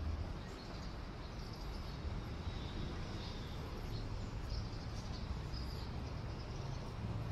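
Steady city street ambience: a low, even traffic rumble with a few faint, short high chirps over it.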